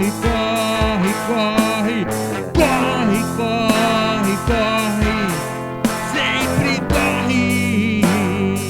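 Band music: a rock song with guitars over a steady drum beat, and a wavering lead melody line.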